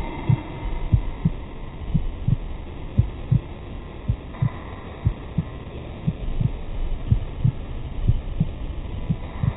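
Dull low thumps, about two a second and often in close pairs, over a faint steady hum.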